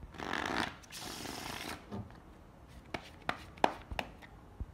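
A deck of playing cards being riffle-shuffled: two quick rustling riffles in the first two seconds. Then several sharp, separate clicks of the cards being tapped and handled on the felt.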